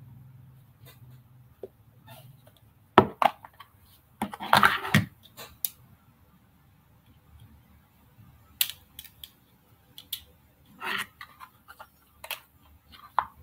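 Sporadic clicks and short knocks of things being handled at a desk, with a denser burst of rustling and clatter about four seconds in.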